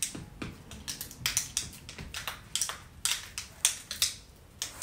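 Wooden pencils worn on the fingertips as long fake nails clacking and rattling against each other in quick, irregular clicks as the hands move.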